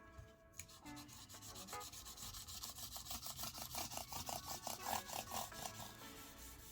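Cloth damp with isopropyl alcohol rubbed quickly back and forth over the keys of an Apple iMac keyboard, about five strokes a second. The rubbing starts about two seconds in and is loudest a little past the middle. Faint background music is heard at the start.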